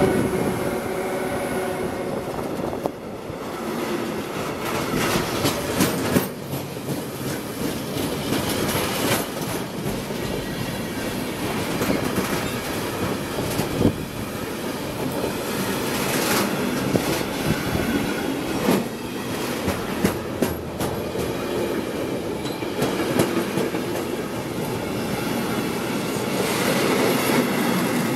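Freight train of container wagons rolling past close by: a steady loud rumble of wheels on rail, broken by sharp knocks at irregular intervals as the wheels clatter over the track.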